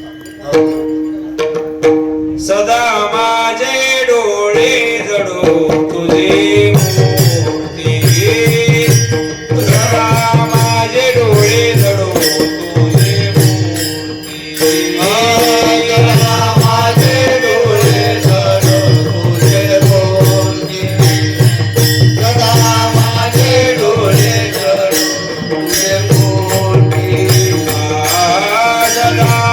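Traditional Varkari kirtan singing (a 'chal' melody) with mridang (pakhawaj) drumming over a steady held drone note. The drone sounds alone at first. The voice comes in about two and a half seconds in, and the drumming grows strong from about seven seconds on, pausing briefly a few times.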